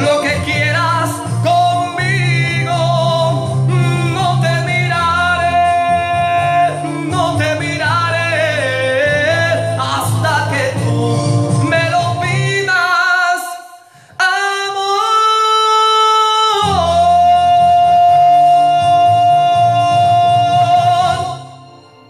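A man singing a ballad over musical accompaniment. Near the end the backing briefly drops away, he holds long high notes, and the music fades out as the song ends.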